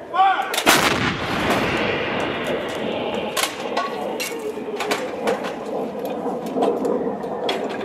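M777 155 mm towed howitzer firing once, about half a second in: a loud blast that rolls on as a long echo, with scattered sharp cracks through the rest.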